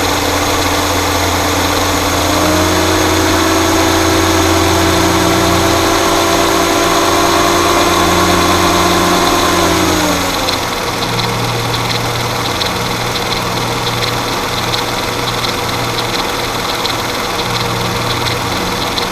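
Mercedes-Benz M112 V6 engine running. Its speed is raised and held for several seconds, then drops back to idle about ten seconds in. At idle a fast, even rattle comes through, which the owner takes for timing chain noise that is pronounced at idle and goes away at about 1500 RPM.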